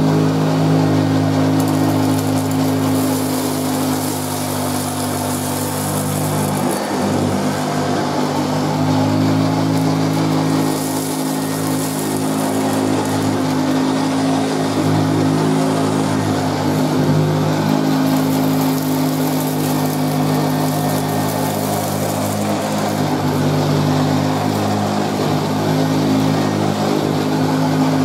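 1978 Hoover Junior Deluxe upright vacuum cleaner's 350-watt motor running steadily with a low Hoover growl. It is being pushed back and forth over carpet, picking up dirt and fluff.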